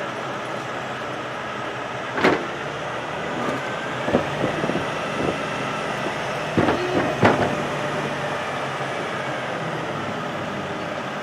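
A heavy engine runs steadily, with several sharp knocks or clanks over it: one about two seconds in, a few around four to five seconds, and two close together near seven seconds.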